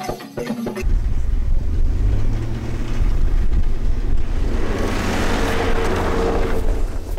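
Large snow blower running with a steady low rumble, and a hiss of thrown snow swelling in the middle. It follows a brief cut-off of xylophone and drum music right at the start.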